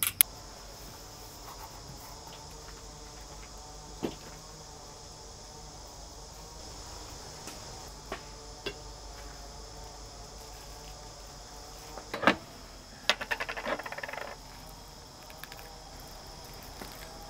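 Insects chirring in a steady high drone, with a few sharp knocks and a short run of rapid clicking about thirteen seconds in.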